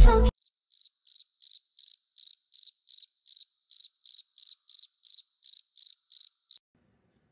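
Crickets-chirping sound effect: short, high chirps at one pitch, about three a second, running for about six seconds and then stopping abruptly. It is the stock awkward-silence gag.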